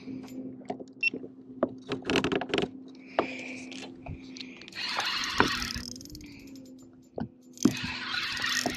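Spinning reel being cranked while fighting a fish, with scattered clicks and a few short spells of hiss over a steady low hum.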